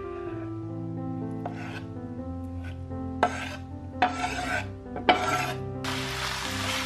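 Background music with several short rasping, scraping sounds over it, then a steady hiss starting near the end.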